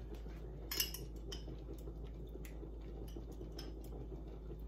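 A few light clicks and taps as a glass jar of garlic is handled and spooned from over a skillet of cream; the loudest comes about a second in. Under them runs a steady low hum.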